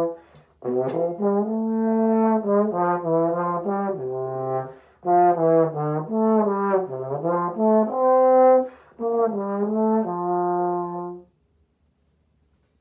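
Solo trombone playing a slow lyrical etude: sustained, connected notes in three phrases separated by short breath pauses, the last note ending about a second and a half before the end.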